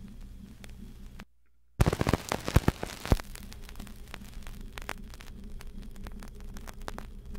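Vinyl LP surface noise in the gap between two tracks: crackle and scattered clicks and pops over a low steady hum. A brief dropout to silence comes just over a second in, followed by a cluster of louder pops.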